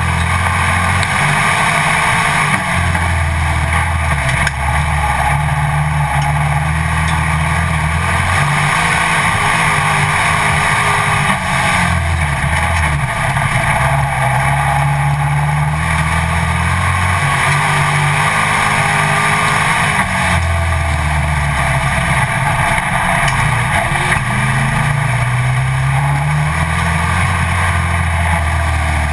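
Pro Stock dirt-track stock car's V8 engine racing, heard from a camera mounted on the car's hood. The engine note rises and falls every few seconds as the car accelerates down the straights and lifts for the corners, under constant wind and track noise.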